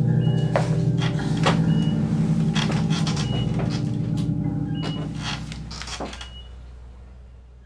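A steady, low droning score with scattered sharp clicks and short high pings, fading out near the end: an ominous film-score or sound-design drone.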